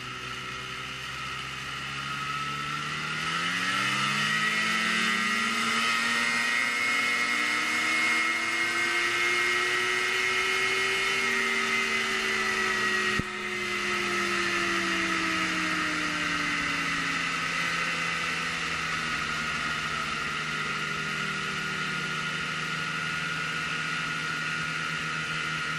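Snowmobile engine at full throttle, its pitch climbing steadily for about ten seconds as the sled accelerates. It then falls slowly as the throttle eases off and settles into a steady cruise.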